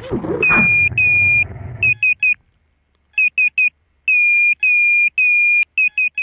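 Water splashing for about the first two seconds as the FPV quadcopter comes down in the lake. Then the quadcopter's electronic beeper sounds a high, steady tone in long beeps and quick runs of two or three short beeps, signalling a downed craft.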